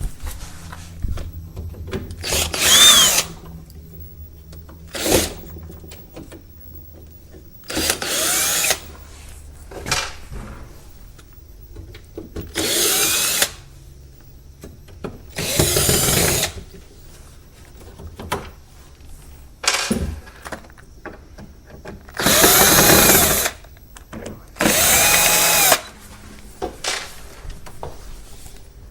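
Electric drill run in about seven short spurts of around a second each, its motor whine sweeping up and down in pitch, with clicks and knocks of handling in between: screws being driven out to take the back panel off an old wooden TV cabinet.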